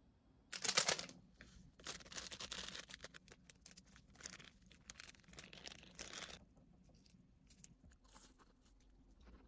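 Paper or plastic packaging being torn and crinkled by hand: a sharp rip about half a second in, then about four seconds of tearing and rustling that stops a little after six seconds, followed by faint handling clicks.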